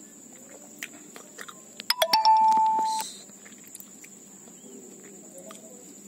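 A single steady beep-like tone, about a second long, just after a quick cluster of clicks about two seconds in, over a faint constant high whine.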